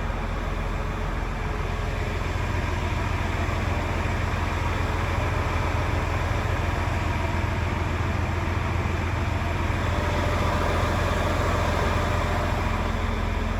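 Volvo FH 500 truck's 13-litre straight-six diesel idling steadily.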